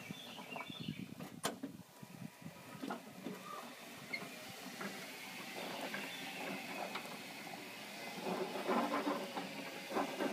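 Driverless battery-carrying lawn mower running as it drives across grass: a steady motor whine with rattling, growing busier near the end, and one sharp click about a second and a half in.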